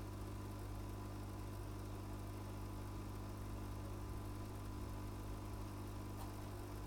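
Steady low hum of running workbench electronics-repair equipment, with a faint steady high tone above it and a faint click about six seconds in.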